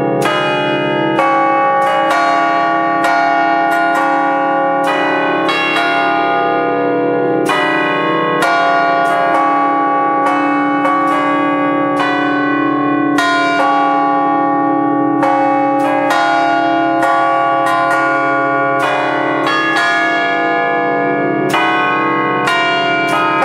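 Five bronze church bells cast by the Fratelli Ottolina in 1932, tuned in D-flat, struck one after another in a festive melodic bell concert. The strokes come at about one to two a second, each ringing on under the next, heard close up in the belfry.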